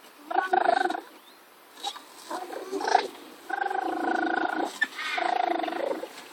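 A toddler's voice making wordless, drawn-out vocal sounds, about four in a row, the longest lasting about a second.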